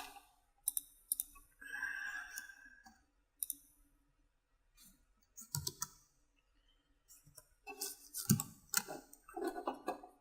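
Scattered clicks of a computer mouse, a few at a time and busiest near the end, with a brief soft hiss about two seconds in.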